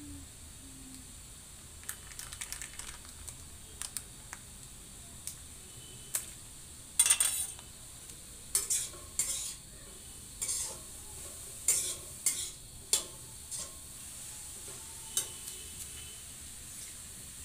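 A metal spoon scraping and clinking against a steel kadhai as halwa is stirred, with a low sizzle from the hot pan. The scrapes come irregularly, the loudest about seven seconds in.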